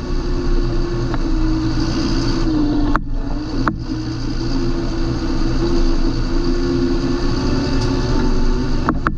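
John Deere 8320 tractor's six-cylinder diesel engine running steadily under way, with a strong even hum. Two sharp clicks come a little under a second apart about three seconds in, and another near the end.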